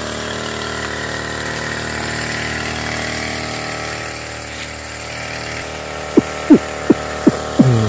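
Small engine of a knapsack power sprayer running steadily as it blows out spray mist. In the last two seconds about five sharp knocks cut in, each dropping in pitch, and they are louder than the engine.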